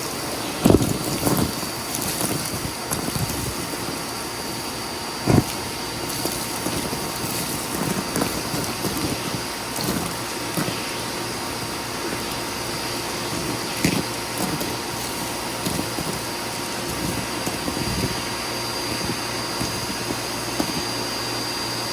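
Vacuum cleaner running steadily with a high motor whine, broken by occasional sharp knocks and crackles as it picks up bits; the loudest knocks come a little under a second in and about five seconds in.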